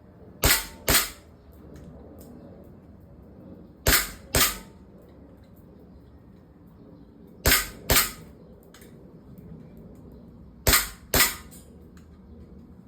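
Airsoft gun firing in quick pairs of shots about half a second apart, four pairs spaced about three seconds apart, with a few faint ticks between them.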